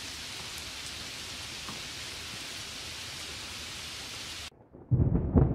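Steady hiss of heavy rain that cuts off abruptly about four and a half seconds in. Just before the end, a loud, low, crackling rumble of thunder begins.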